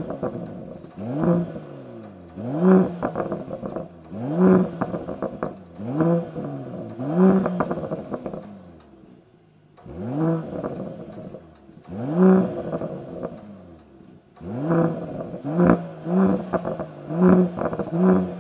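Mercedes-AMG GLE 53 Coupe's turbocharged inline-six petrol engine revved repeatedly while standing, heard at its quad exhaust tips. Each blip rises and falls in pitch, followed by crackles and pops. There is a short lull about halfway, then quicker blips near the end.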